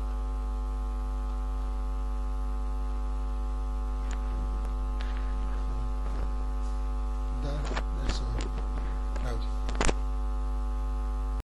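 Steady electrical mains hum with a stack of steady overtones, with a few faint brief clicks over it; it cuts off abruptly near the end.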